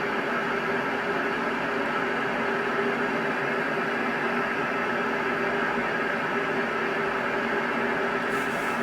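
Steady whirring noise with a constant low hum under it, unchanging throughout.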